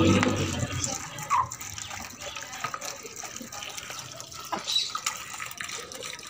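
Water poured from a plastic bottle, trickling and splashing into a small plastic tub on the ground.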